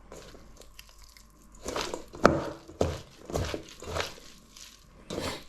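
Onion and potato bhaji mixture being stirred through with spices in a bowl: a run of uneven rustling, crunching strokes, louder and more frequent from about two seconds in.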